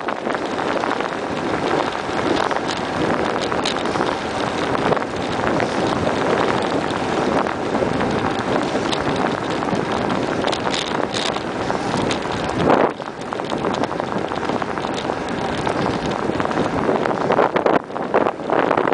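Wind rushing over the microphone of a camera on a moving bicycle, mixed with tyre and road noise. A brief louder jolt about two-thirds of the way through, after which it is a little quieter.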